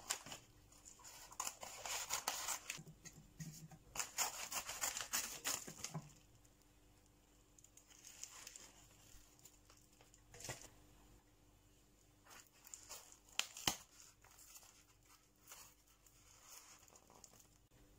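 Scissors cutting open a padded paper mailing envelope, then bubble wrap, plastic and paper packing crinkling and rustling as the contents are pulled out and unwrapped. The crinkling is densest in the first six seconds and then comes in short, fainter rustles with a few sharp clicks.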